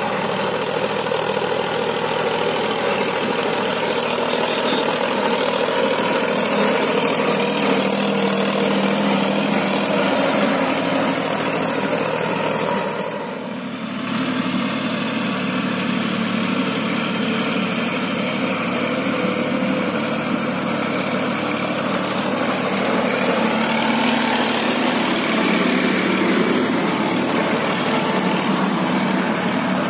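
Solis 5015 4WD tractor's diesel engine running steadily under load while pulling a tine cultivator through the soil, with a brief drop in level about thirteen seconds in.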